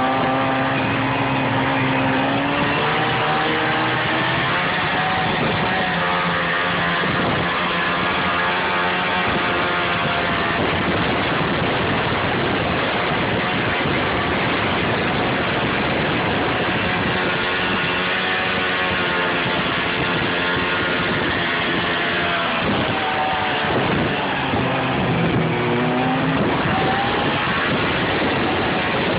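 Snowmobile engine running under way, its pitch rising and falling as the throttle is worked, over a steady rushing noise.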